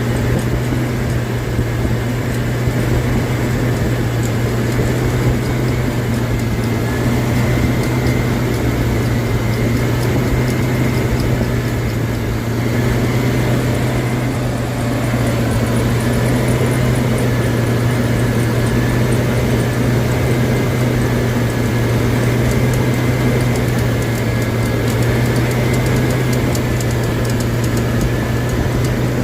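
A steady low hum, like a running motor or engine, with a faint high-pitched squeak that wavers and comes and goes over it.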